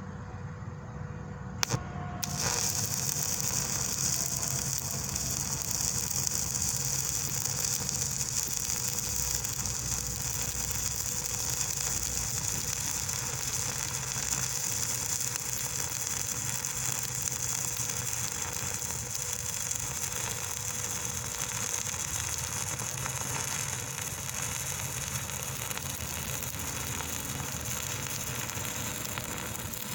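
Stick-welding arc from an E6013 3/32-inch rod on DC electrode positive at about 70 amps, run vertical down on mild steel plate. A sharp click of the strike comes about two seconds in, then the arc burns with a steady hiss.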